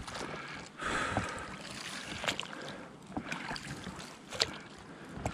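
Oars of an inflatable boat rowing through shallow, algae-choked marsh water: the wash and splash of the strokes, with a louder surge of water about a second in and a few short clicks or drips after it.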